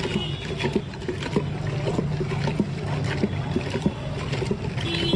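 Lassi being churned in a large clay pot: the yogurt mix sloshing and splashing, with sharp knocks about every half second.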